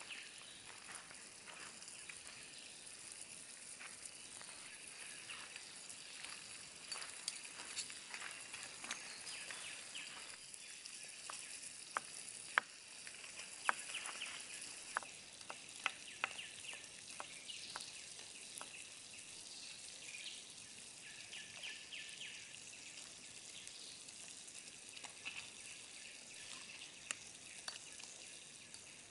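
Food frying in a pan: a faint, steady sizzle with scattered sharp pops and crackles, thickest in the middle.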